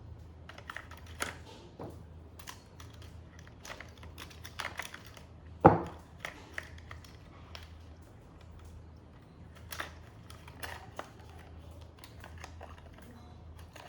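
Irregular light clicks and taps of a plastic toy and its packaging being handled, with one sharp knock a little before six seconds in.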